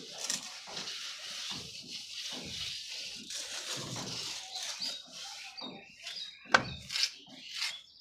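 Steel trowel scraping and smoothing wet sand-and-cement plaster on a wall in irregular strokes, with a few short squeaks and a sharp knock about six and a half seconds in.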